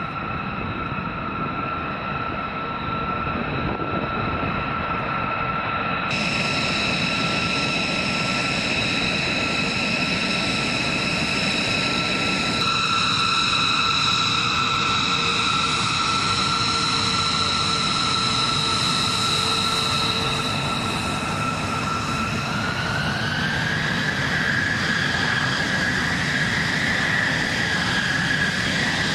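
Jet engines of a B-2 Spirit stealth bomber running on the ground: a steady high whine over a rushing noise. About 23 seconds in, the whine rises in pitch as the engines spool up.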